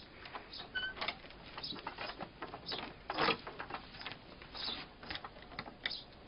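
Faint, irregular knocks, clicks and rustling from a dog tugging at a rope tied to a wooden shed door, with a louder knock about three seconds in.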